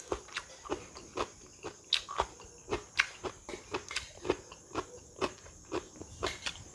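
Close-up chewing of crisp raw food, about three crunches a second.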